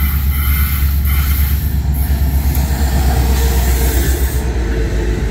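Diesel freight locomotive passing close by, its engine running loud with a heavy low rumble, followed by loaded hopper cars rolling along the track. The hissing top end fades about four and a half seconds in as the locomotive goes by.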